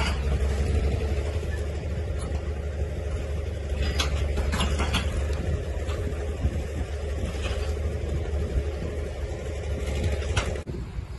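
Diesel engine of a Caterpillar D6 9U crawler tractor running steadily under load as it hauls a train of freight sleighs over packed snow, with a few short sharp creaks and clanks. The engine sound drops away suddenly near the end.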